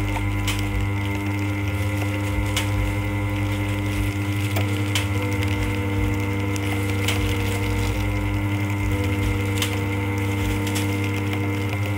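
Continuous band sealer running as it seals plastic bags: a steady motor hum, with six sharp clicks at irregular intervals of one to two and a half seconds.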